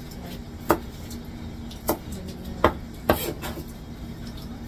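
Kitchen knife chopping green onion on a cutting board: four sharp, separate knocks about a second apart, the last followed by a short clatter.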